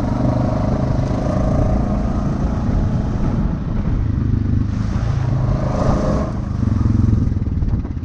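ATV engine running under throttle while the quad is ridden over rough trail, the revs swelling and easing a few times.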